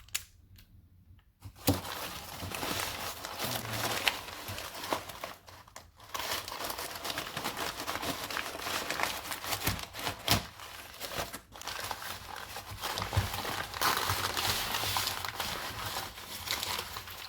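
Packaging being crumpled and crinkled by hand as locks are unwrapped, with a few sharp clicks mixed in. The rustling starts about a second and a half in and keeps going.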